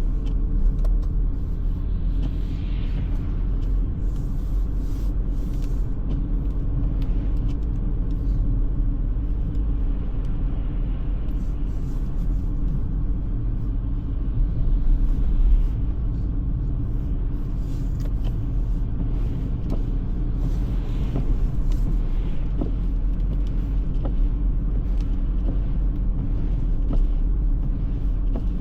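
Car driving at steady speed: a continuous low rumble of engine and tyre noise, swelling slightly about halfway through, with faint scattered ticks over it.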